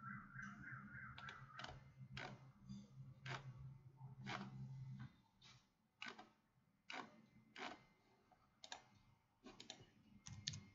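Faint, irregular clicks of a computer mouse and keyboard, about a dozen spread out, with a quicker run of clicks near the end. A low hum runs beneath them and stops about halfway.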